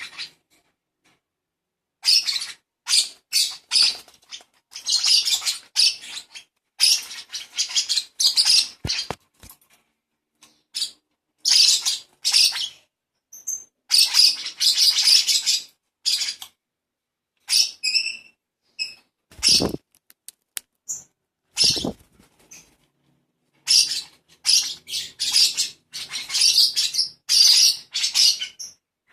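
Baby lovebird calling in quick scratchy bursts, in bouts separated by short pauses, with a few brief clearer chirps in the middle. Two dull thumps come about halfway through.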